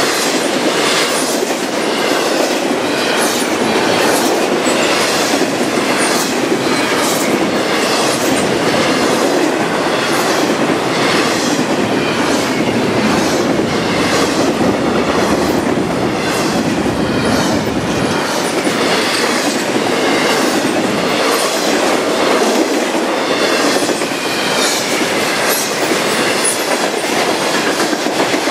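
Passing CSX intermodal freight train: steel wheels clacking over the rails in a steady, regular rhythm over a constant rolling rumble.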